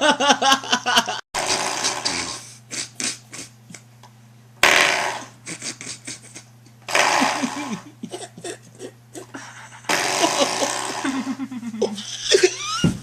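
Coiled-spring door stop flicked again and again, giving wobbling, falling boings that sound like farts. There are four main twangs with small clicks and taps between them.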